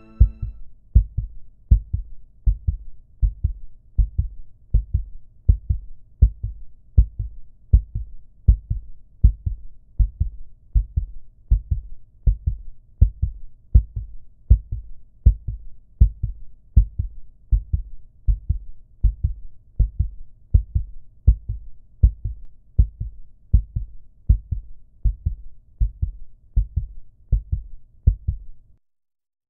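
Heartbeat sound effect: low double thumps, lub-dub, repeating evenly about once a second, stopping shortly before the end.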